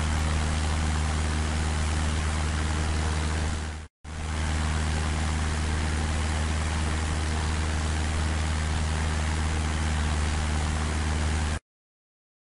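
An engine running steadily with a low hum and hiss. It cuts out for a moment about four seconds in, resumes, and stops abruptly near the end.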